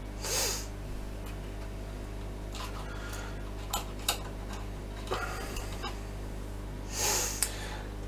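A man breathing out hard through his nose twice, once near the start and once near the end, while leaning close over the work. Between the two breaths come a few light clicks and taps of a hex key against the circuit board and its plastic clips, over a steady low hum.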